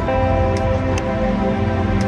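Background music of slow, held notes, with a light tick about every half second.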